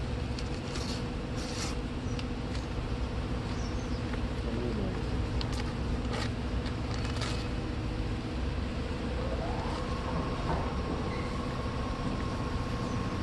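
A steady machine drone carrying a couple of constant low tones, with a higher tone that rises about ten seconds in and then holds, and a few light clicks.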